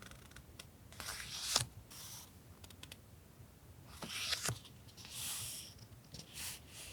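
Paper stationery being handled on a desk: several short rustling swishes with a few light taps and clicks.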